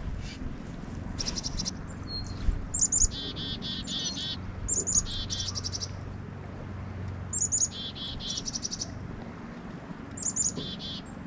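Chickadees calling chick-a-dee-dee-dee about four times: each call a few short high notes followed by a quick run of lower repeated notes.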